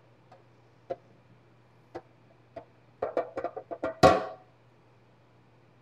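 Metal clicks and knocks from a two-piece meatloaf pan's lift-out insert being raised out of its outer pan with oven mitts. A few single clicks come first, then a quicker run of them about three seconds in, and a louder clunk about four seconds in.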